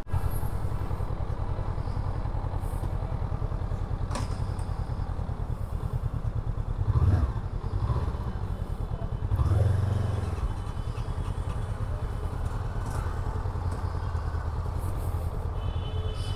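Motorcycle engine running while the bike is ridden: a steady low, rapid pulsing, with the revs picking up briefly about seven seconds in and again around ten seconds.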